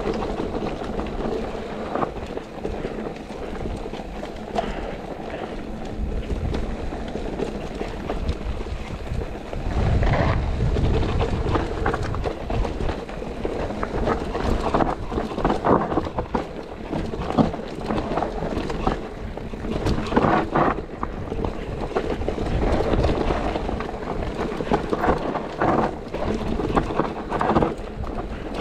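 Enduro mountain bike riding down a rough trail: wind buffeting the action camera's microphone, tyres on dirt and stones, and the bike clattering with many sharp knocks over bumps.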